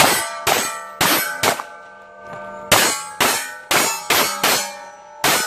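Rapid gunfire on steel target plates: about ten hits, each a sharp clang that rings on at several pitches. The hits come as four about half a second apart, a short pause, five more in quick succession, then a final one near the end.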